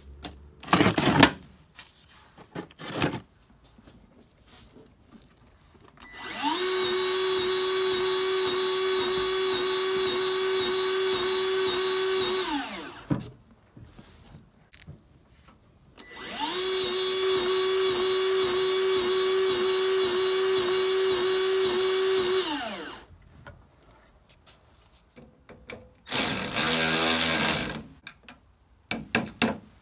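Power drill running in two long bursts of about six seconds each, each spinning up and winding down, driving in the caster mounting bolts on a tool cart. A shorter, rougher burst of the tool follows near the end.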